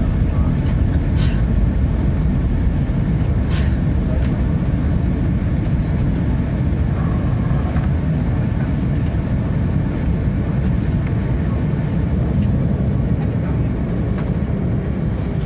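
Airbus A330-300 cabin noise during landing: a steady low rumble of engines and airflow that eases slightly toward the end. Two short sharp clicks come about one and three and a half seconds in.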